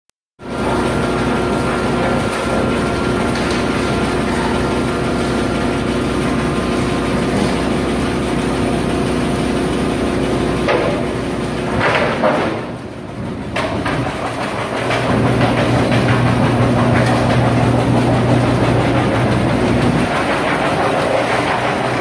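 YBX-2113 drum wood chipper line running: a loud, steady machine hum. It dips briefly about halfway through, then comes back with a stronger low hum.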